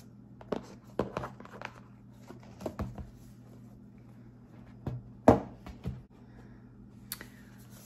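Hands handling a gift box and shopping bag: scattered knocks, taps and light rustling as an item is taken out, the loudest a sharp knock about five seconds in.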